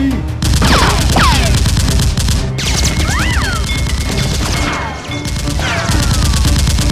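Rapid volleys of gunfire sound effects over background music, with several high whistling sweeps that fall in pitch. The shooting briefly eases about five seconds in.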